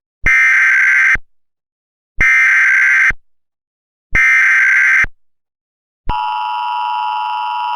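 Emergency Alert System header: three buzzing bursts of digital SAME data tones, each about a second long, followed about six seconds in by the steady two-tone EAS attention signal. Together they announce the start of a new emergency alert message.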